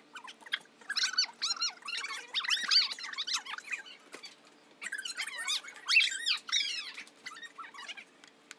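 Utility knife blade being drawn through a sheet of board, giving two spells of high, wavering squeaks.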